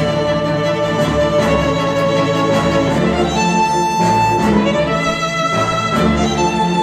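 Cinematic classical music led by violin and strings over a repeating low pulse, played back through KEF LS50 Meta bookshelf speakers.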